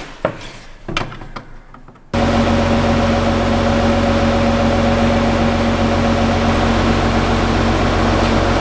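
A few clicks and handling knocks, then about two seconds in a 24 V DC linear actuator starts and runs steadily, a motor whine over a low hum, as it drives the slide-out room's mechanism out.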